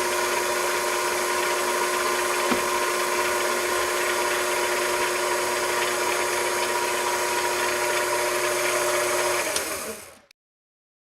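A small machine tool's electric motor running at a steady speed with a steady whine, then winding down near the end, its pitch falling as it stops.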